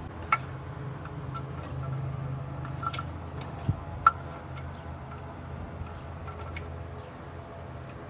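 Scattered light metallic clicks and clinks of a spanner and parts against the camshaft and timing chain while the cam gear is being fitted, the sharpest about four seconds in, over a faint steady hum.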